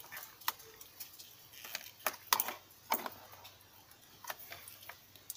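Scattered clicks and taps, about ten at uneven intervals, from multimeter test leads and alligator clips being handled and clipped onto a circuit board.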